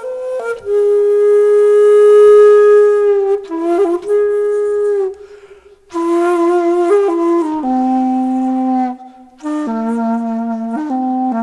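Solo flute playing a slow melody of long held notes with slight pitch bends, breaking off briefly about five seconds in and again near nine seconds before picking up.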